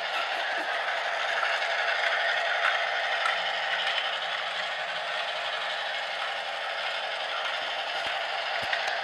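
Lego Duplo toy train's battery motor running steadily as the locomotive rolls around plastic track, a continuous rattling hum of gears and wheels, with a few light clicks near the end.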